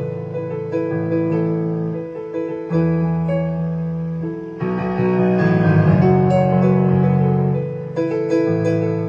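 Solo piano playing slow chords over a low bass note. Each chord is struck and left to fade before the next, about every second or two.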